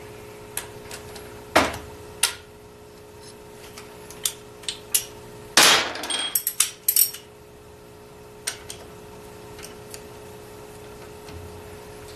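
Hand-tool work on a Ford nine-inch differential third member: a socket ratchet being worked, with scattered metal clinks and knocks. The loudest part is a longer noisy stretch about five and a half seconds in, followed by a quick run of clicks.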